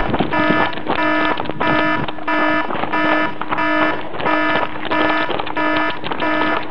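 A pitched, beep-like electronic tone with many overtones, repeating evenly about twice a second over a steady background hiss.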